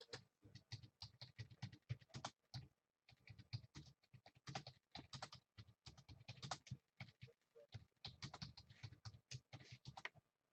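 Typing on a computer keyboard: quick, irregular runs of key clicks with a couple of short pauses.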